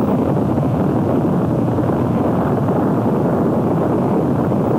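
A tornado's roar captured on a portable tape player whose microphone lay across an open window: a loud, steady rushing roar with no let-up.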